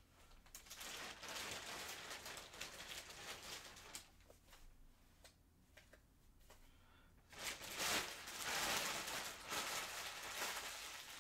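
Rustling and crinkling handling noise as skeins of chunky yarn are taken out and laid down on a table. It is busy for the first few seconds, quieter with a few light clicks in the middle, then louder again near the end.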